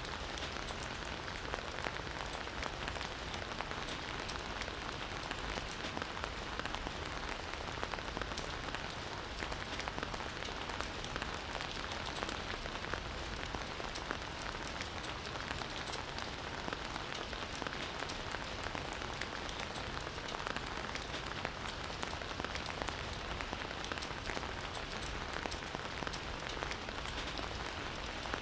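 Campfire burning with a steady, dense crackle of many small pops and snaps.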